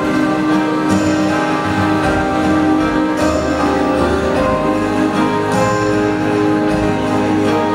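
Viennese waltz music playing steadily and loudly.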